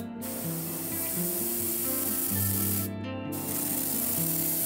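Airbrush spraying paint onto a wooden crankbait body, a steady hiss that stops briefly about three seconds in and then resumes, over background music.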